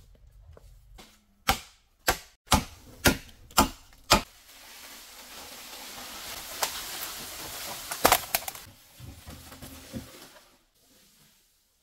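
Chopping: six sharp strikes about half a second apart, then a few seconds of rustling noise with two or three more strikes before it fades away.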